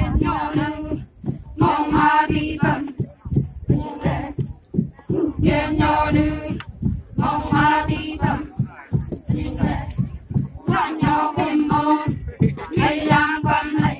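A group singing a traditional rice-pounding work song in short phrases about a second long, with pauses between them. Under the singing, long wooden pestles thud into a wooden pounding trough in a steady rhythm.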